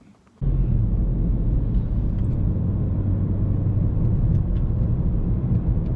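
2008 BMW 335i's N54 twin-turbo inline-six running, a steady low drone that starts suddenly about half a second in.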